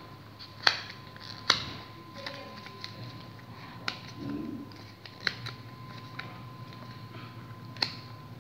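Paper being folded and creased by hand, shaping a paper airplane's elevators: soft rustling broken by a handful of sharp crackles and snaps as the folds are pressed in.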